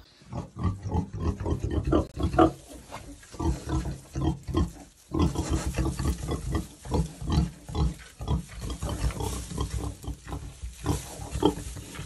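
A sow and her newborn piglets grunting: many short grunts in quick succession, with a brief pause about five seconds in.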